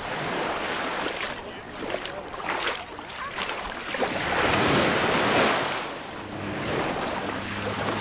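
Small sea waves washing up and back over a pebbly shoreline, one wash swelling loudest about halfway through, with faint chatter of people on the beach.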